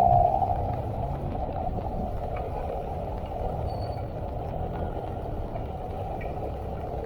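A motor vehicle's engine running steadily under a constant rushing noise.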